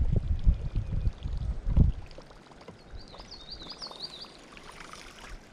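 Low rumbling noise for about the first two seconds, then a quiet open-air background in which a small bird sings a quick run of five or six rising-and-falling chirps, about three to four and a half seconds in.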